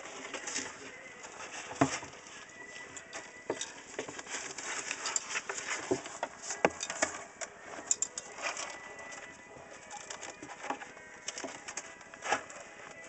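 Kittens scrabbling and pawing in cat litter inside a plastic litter tray: irregular scratchy rustles with scattered sharp clicks and knocks, the loudest about two seconds in and again about six and a half seconds in.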